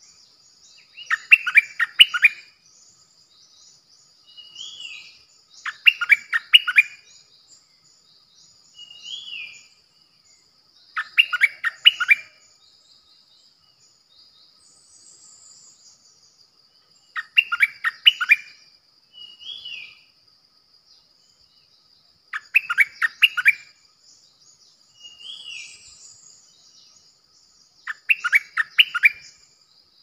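Stripe-throated bulbul singing: six short bubbly phrases of quick notes, each about a second long and spaced about five to six seconds apart, with a single softer note between most of them.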